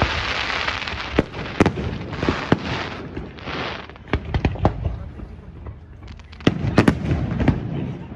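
Fireworks display going off: a string of sharp bangs mixed with long crackling hisses from the bursting shells, with a dense cluster of bangs about six to seven seconds in.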